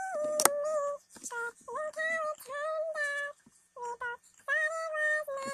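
A girl singing in a high, chipmunk-style voice in short phrases with brief breaks between them, the words hard to make out. There is one sharp click about half a second in.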